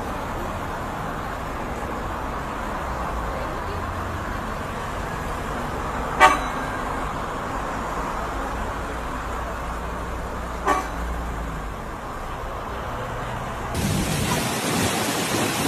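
Steady road traffic with two short car-horn toots, one about six seconds in and one about ten and a half seconds in. Near the end the sound changes abruptly to a louder rushing noise.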